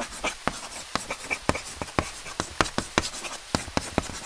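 Chalk writing on a hard surface: a quick, irregular run of short, sharp strokes, several a second, as letters are drawn.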